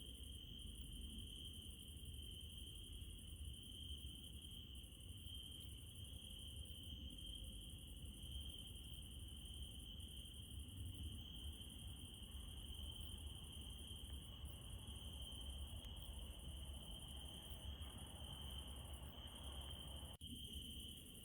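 Crickets chirping in a steady, continuous night chorus, over a low steady rumble. The sound drops out briefly about twenty seconds in.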